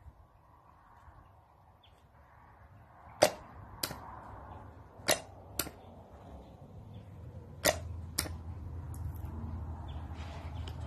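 Paris-Rhône starter solenoid clicking as it pulls in each time a battery lead is touched to it: sharp clicks in three pairs, each pair about half a second apart. The starter motor does not turn; the solenoid just pulls in.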